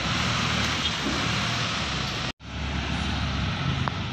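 Steady road traffic noise, broken by a sudden, brief drop-out a little past halfway where the recording cuts.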